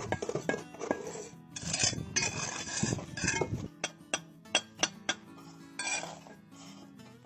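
Steel trowel scraping and spreading mortar on brick, then a quick run of sharp clinking taps about four seconds in as bricks are knocked into place, and one more short scrape near the end.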